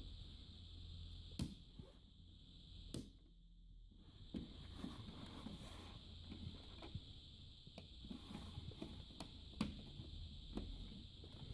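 Scattered faint clicks and rustles of hands handling a T-con board's flat ribbon cable and its metal connector, over a faint steady high whine.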